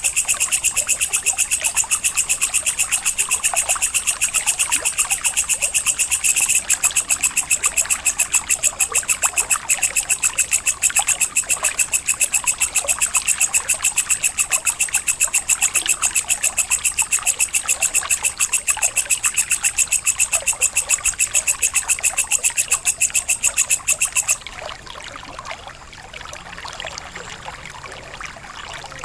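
An insect chirping in a fast, even, high-pitched pulse train that cuts off suddenly about 24 seconds in. Fainter, scattered chirping continues underneath and after it.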